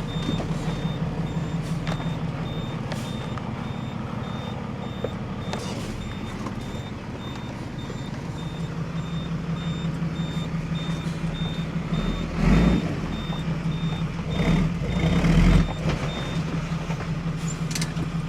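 Dump truck running while reversing into position, its reversing alarm beeping evenly over the steady engine. A few louder surges of engine noise come about two thirds of the way through, and the beeping stops shortly before the end.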